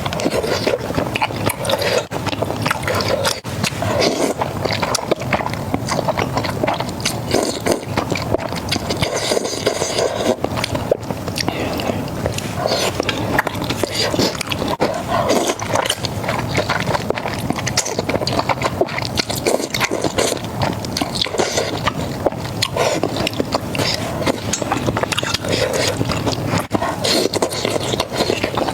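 Close-miked eating: continuous chewing and crunching of crispy fried meat, with wet mouth smacks and many small crackles.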